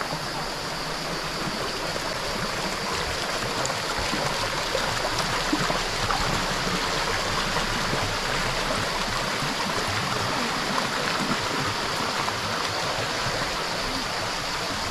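Mountain stream flowing steadily, a continuous rush of water that grows a little louder a few seconds in.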